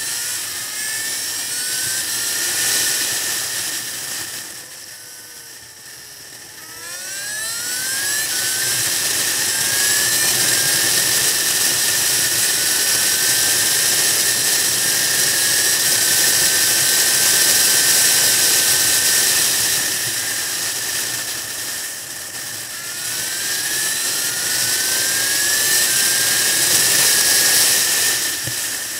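Motorcycle engine running on the road under heavy wind rush over the bike-mounted microphone; the engine pitch climbs again and again as it accelerates through the gears. About five seconds in it eases off, drops in pitch and quietens, then picks up again.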